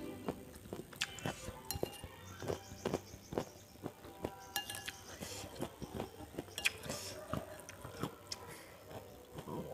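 Close-miked eating of chicken soto: a metal spoon clinking and scraping against a ceramic bowl as noodles and chicken are scooped up, with wet chewing between the clinks.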